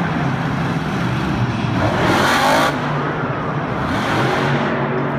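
Monster truck's supercharged V8 engine running and revving. A loud rushing burst comes about two seconds in, with a weaker one near four seconds, as pyrotechnic spark fountains fire.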